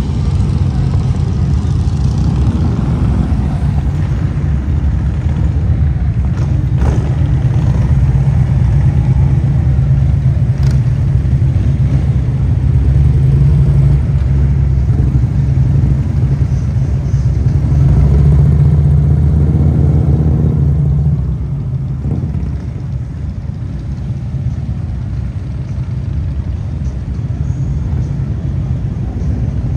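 Motorcycle engines running as bikes ride by, the sound sitting mostly low. It drops off somewhat about two-thirds of the way through.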